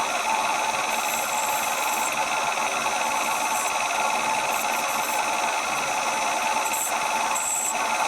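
A machine tool running steadily: a constant mechanical hum with a steady whine.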